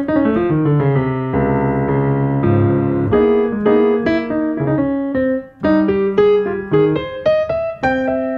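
Instrumental background music: a piano plays a melody in separate notes, with a few held chords, and no singing.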